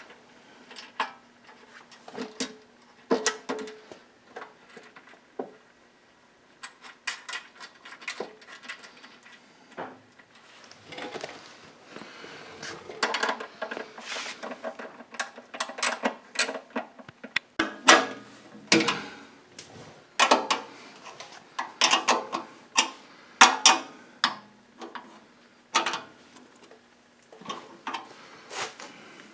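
Irregular metallic clinks and knocks of tools, bolts and sheet-metal parts as the wood chipper's discharge chute is fitted and bolted on, coming thicker and louder in the second half.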